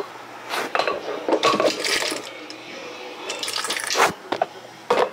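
A glass mason jar being handled and filled with water: a few knocks and clinks of glass, with short bursts of running and splashing water.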